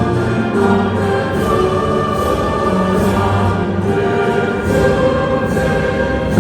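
Choral and orchestral music: a choir singing held notes over an orchestra.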